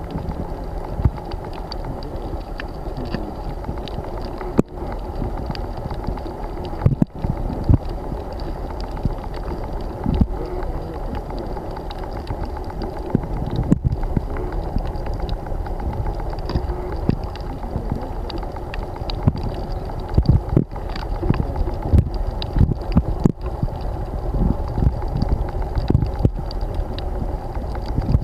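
Underwater noise: a steady low rumble with scattered dull knocks and clicks.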